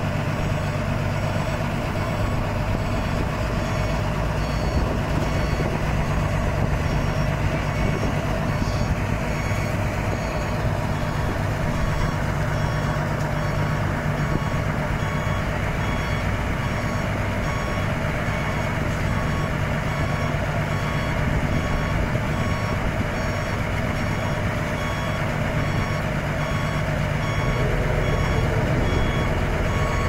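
Dump truck reversing slowly, its diesel engine running steadily under a reversing alarm that beeps over and over at an even pace.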